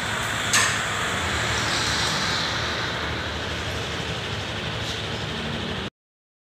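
Honda scooter's single-cylinder engine idling steadily, with one sharp click about half a second in; the sound cuts off abruptly near the end.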